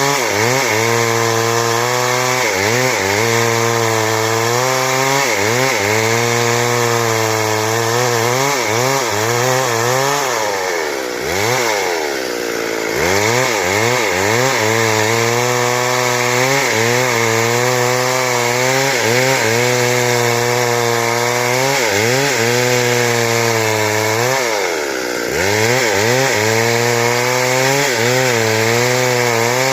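Stihl chainsaw running under load, cutting lengthwise through timber to saw boards; its pitch wavers as the chain works through the wood. Twice the revs sag and pick back up, once before the middle and again about four-fifths through.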